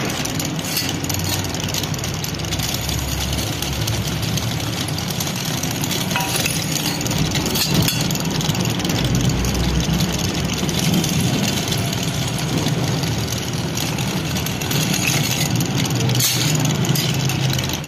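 Pillar drill motor running steadily while its bit drills into a steel plate, with a few brief louder scrapes of the cut.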